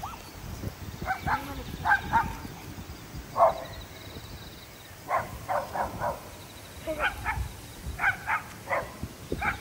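A dog barking in short runs of one to four barks, a run every second or two.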